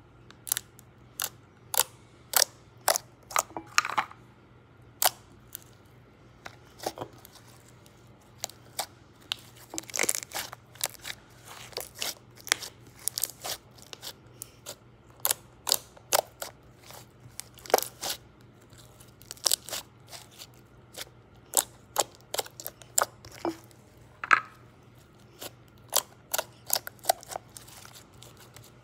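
Glossy slime being squeezed and folded by hand against a stone countertop, giving sharp wet clicks and pops as trapped air pockets snap. They come irregularly, about two a second, sometimes in quick clusters.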